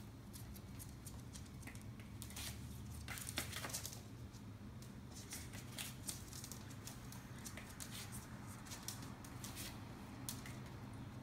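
Maltese puppy's claws clicking lightly and irregularly on a hardwood floor as it moves about, busiest about three seconds in, over a faint low hum.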